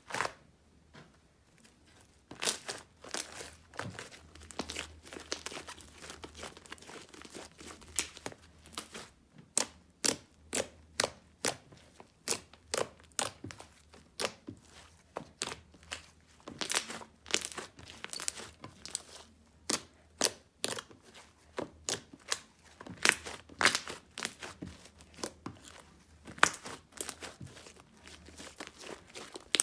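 Green slime made from modelling foam with foam beads, squeezed and kneaded by hand, giving a string of sharp crackles and pops, a few a second, starting about two seconds in. It is the crunchy crackle this kind of slime is made for.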